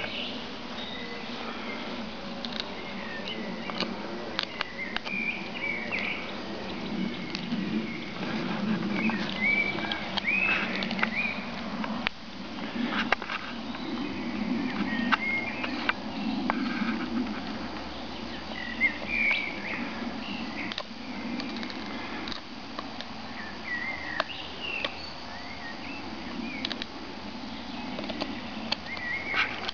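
A dog gnawing on a wooden stick, teeth scraping and crunching the wood in irregular sharp clicks. Birds chirp now and then in the background.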